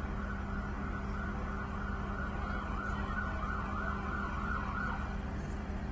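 An emergency vehicle's siren wavering up and down, stopping about five seconds in, over the steady low hum of an idling engine.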